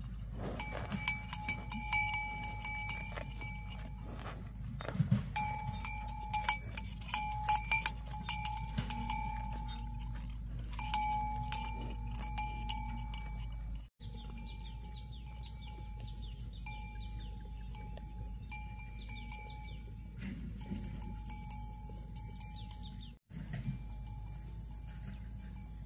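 A metal cowbell on a cow's neck clanking irregularly as the cow grazes and moves its head, each strike ringing on briefly. The clanking is loudest in the first half and turns faint after about fourteen seconds.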